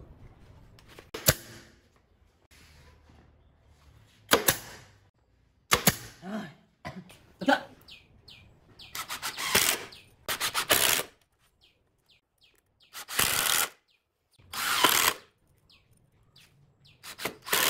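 A pneumatic brad nailer fires three separate sharp shots into a pine frame, a second or so apart. Then a cordless drill runs in several short bursts of about a second each, drilling holes in the pine.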